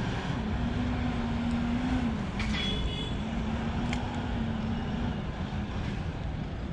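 Steady road traffic rumble with a vehicle engine hum that holds, breaks off about two seconds in, and comes back for a few seconds. A single sharp tick about four seconds in.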